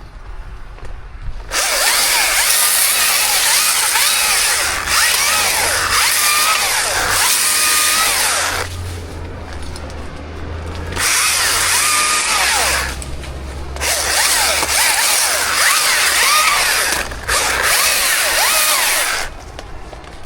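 Chainsaw revving up to cut wood in several long bursts, dropping back to a lower run between cuts.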